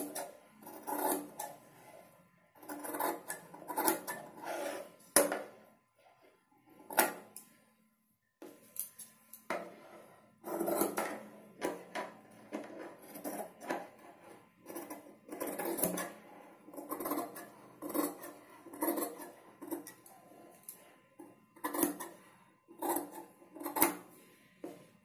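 Tailoring scissors snipping through cotton fabric, trimming the excess cloth beyond a seam: short crisp metallic snips at about one a second, with a pause of a couple of seconds about six seconds in.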